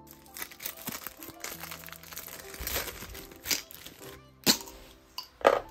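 Plastic packaging crinkling as nail-art dotting tips in clear plastic tubes are handled and slid out of a plastic bag, with a few sharp clicks of the plastic, the loudest near the end. Soft background music plays underneath.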